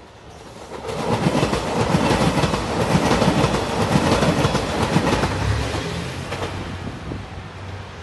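JR Shikoku 2700 series diesel limited-express train passing by, its wheels clattering over the rail joints. The sound swells about a second in, is loudest through the middle and fades as the train moves away.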